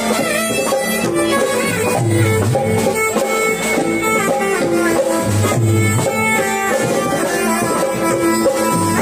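Live band music for a raas devotional folk dance: sustained melodic lines over drums, with a low bass phrase that comes back about every three and a half seconds.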